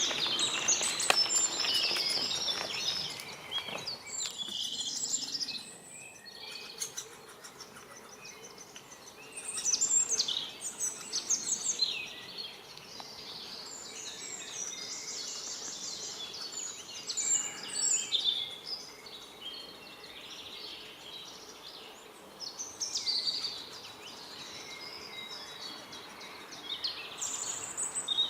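Great spotted woodpeckers calling in repeated bursts of rapid, high chattering. The calls are loudest in the first three seconds and come back in shorter bursts several times, over a steady outdoor background hiss.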